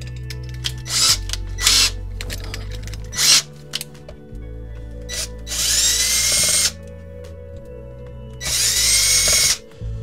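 Cordless drill/driver running on the screws of a ceramic tower heater's motor bracket. It gives a few short bursts in the first half, then two longer runs of about a second each, the motor whine rising in pitch as each one spins up.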